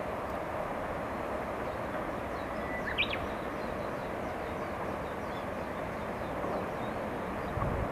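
Steady outdoor background noise with small birds chirping faintly, and one short, sharper bird call about three seconds in.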